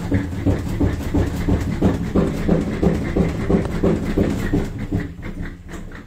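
Panasonic NA-F65G7 top-loading washing machine running with a low, rhythmic pulsing mechanical noise, a few pulses a second, easing slightly near the end: the abnormal noise that marks a fault in the machine.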